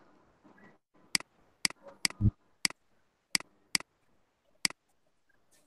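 Computer mouse button clicking: about eight short, sharp clicks at irregular intervals, some in quick pairs. A dull low thump comes a little after two seconds in.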